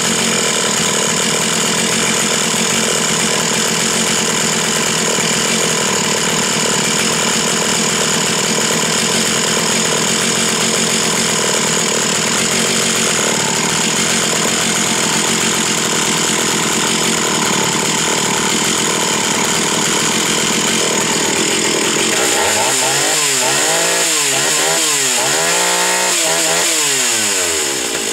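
Stihl 028 two-stroke chainsaw, freshly fitted with a new carburetor and fuel line, running steadily at high revs. Near the end it is revved up and down several times, then shut off and winds down.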